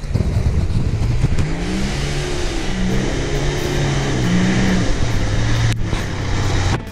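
Nissan Safari 4WD's engine revving up and down as it comes closer. Its note settles lower and steadier about two-thirds of the way through.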